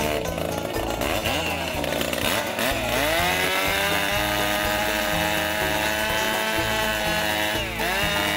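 Two-stroke chainsaw cutting into a weathered wooden barn post. It revs up and down for the first few seconds, then runs at a steady high pitch as it cuts, with a brief dip in pitch near the end.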